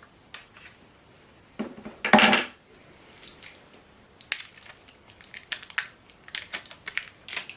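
Small plastic clicks and taps from AAA batteries and a TV remote's battery compartment being handled, with a louder handling noise about two seconds in.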